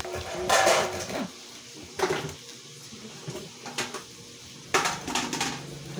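A dull kitchen knife sawing through the crisp breadcrumb crust of fried chicken cordon bleu rolls and scraping on a cutting board, in about four separate bouts of rasping strokes. The knife is dull, so the slicing drags on.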